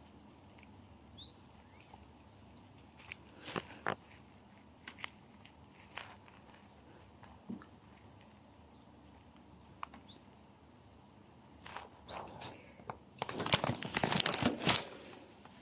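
A tiny bird giving a few short, thin calls that sweep upward in pitch, with light taps between them. Near the end there is a loud burst of scuffling noise.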